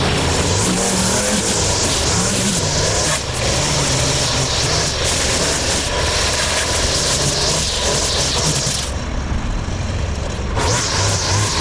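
String trimmer running at speed, cutting grass along a foundation wall. It eases off for a moment about nine seconds in, then picks up again.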